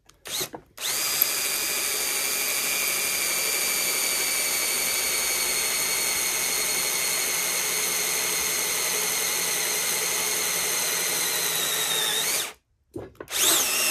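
Bosch cordless drill boring a bolt hole down through the oak deck boards, its motor whining steadily for about twelve seconds. The pitch sags slightly near the end before it stops, then starts again a moment later.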